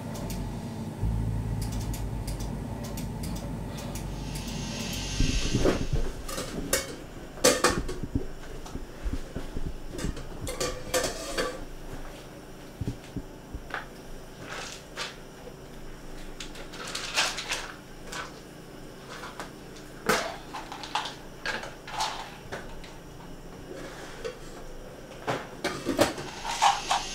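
Metal pots, pans and utensils clattering, with knocks of cupboard doors, in scattered irregular clanks from about five seconds in.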